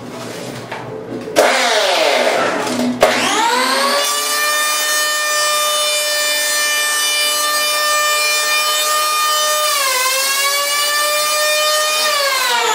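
Accurate electric surfboard planer starting up about a second and a half in and rising to a high, steady whine while shaving a foam surfboard blank. It cuts out briefly near three seconds, dips in pitch for a moment near ten seconds, and falls in pitch near the end.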